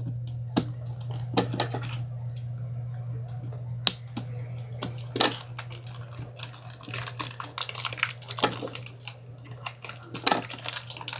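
Unboxing a speedcube: scattered clicks and taps of box and plastic parts being handled, then, from about seven seconds in, denser crinkling of plastic wrapping, over a steady low hum.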